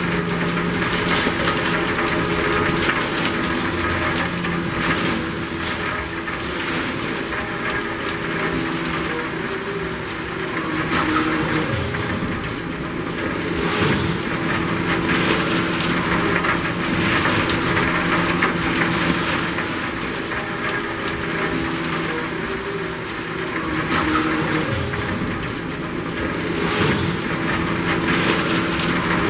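Coal pouring from a loadout chute into a moving open-top hopper car: a steady rushing din over a low hum. A thin, high squeal comes in about three seconds in and again at about twenty seconds, each time lasting several seconds.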